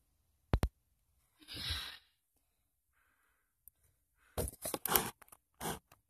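Handling noise from a camera being moved and set in place: two sharp clicks about half a second in, a short breathy hiss, then a quick cluster of knocks, scrapes and fabric rustling in the second half.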